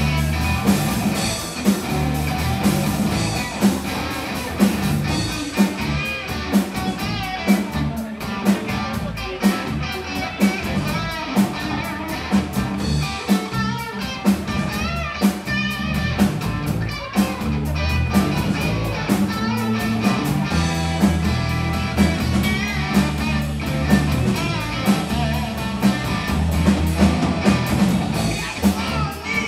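Live blues-rock band playing an instrumental passage: distorted electric guitars over a drum kit keeping a steady beat, with a heavy low end.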